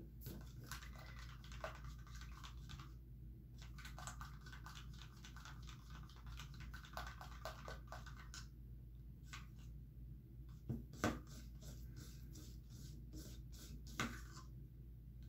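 A craft stick stirring thick acrylic pouring medium in a plastic measuring cup, giving faint, irregular scraping and clicking against the cup's sides. There are a few louder taps about eleven seconds in and near the end.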